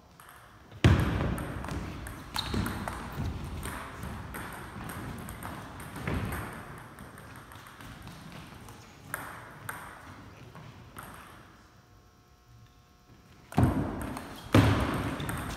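Table tennis balls clicking off paddles and the table, in short rallies with pauses between points. The loudest hit comes about a second in, and a quick run of hits comes near the end.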